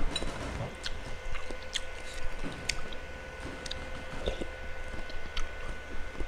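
A person chewing bakso (beef meatballs) close to the microphone, with wet, irregular mouth clicks and smacks.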